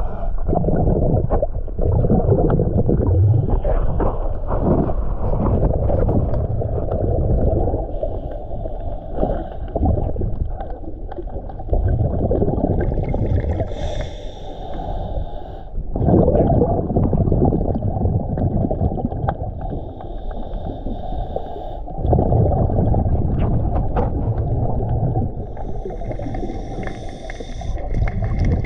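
Underwater rumble of a diver's exhaled breath bubbling through the regulator, surging every few seconds, over a steady low wash of moving water against the camera housing.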